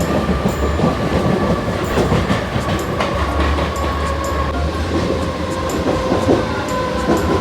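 Suburban electric train running: a steady rumble of the wheels on the track with irregular clatter and a steady high whine.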